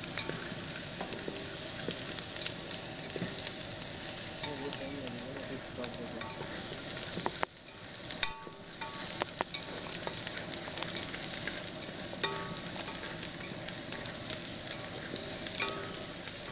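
Chopped onions sizzling as they fry in oil in an aluminium pot, stirred with a plastic spatula that scrapes and clicks against the pot. The sizzle drops out briefly about seven seconds in, then resumes with a sharp click.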